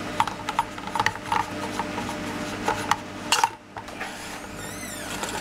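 The Hatsan Gladius air rifle's air cylinder being unscrewed by hand: irregular metallic clicks and rubbing of the threads and cylinder against the stock. There is a short wavering high squeak near the end.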